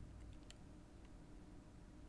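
Near silence with a low room hum and a few faint clicks from a precision screwdriver working the small screws of the ribbon-cable bracket inside a camera body. The sharpest click comes about half a second in.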